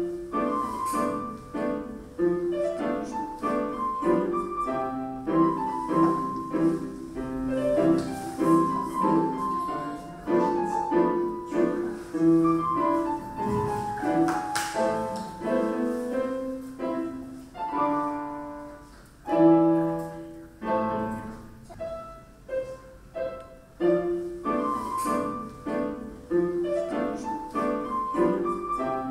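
Solo piano music in a light classical style, played as a steady stream of short notes.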